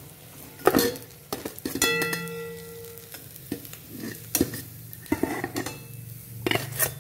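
Steel spatula scraping and clinking against a steel frying pan and plate as fried eggplant slices are lifted out, over a faint sizzle of hot oil. One clink about two seconds in rings on for about a second.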